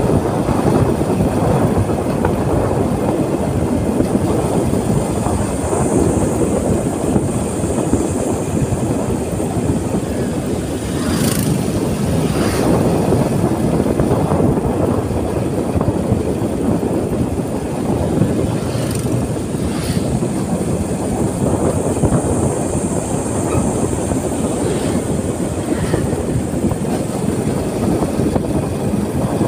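Steady wind rush on the microphone and rolling road rumble from riding along a paved road, with a few brief knocks about a third of the way in and again past the middle.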